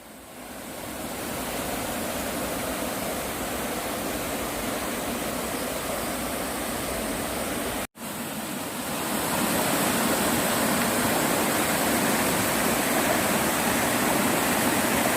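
Water rushing steadily in a mountain valley stream. The sound breaks off briefly about eight seconds in and comes back a little louder.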